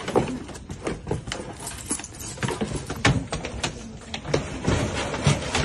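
Irregular knocks and clatter over steady background noise as a plastic pet carrier is handled and loaded into the bed of a pickup truck.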